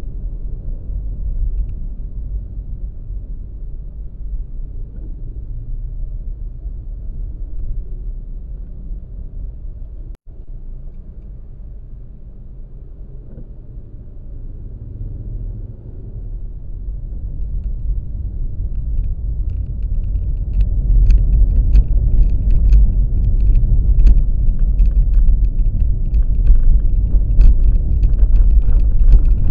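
Low, steady rumble of road travel, with vehicle and wind noise on the microphone. There is a momentary break about ten seconds in. Over the last third the rumble grows louder and is joined by scattered crackling.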